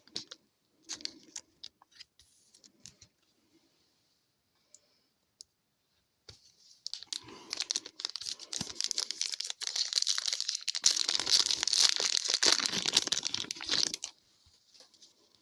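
Light clicks of cards being handled, then, about six seconds in, a hockey card pack's wrapper torn open and crinkled for about seven seconds before it stops abruptly.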